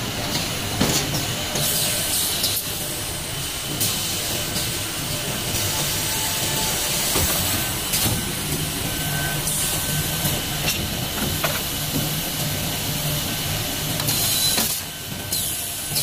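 Automatic cable coiling and strapping machine running: a steady mechanical hiss over a low hum, with several short bursts of louder hiss and occasional clicks.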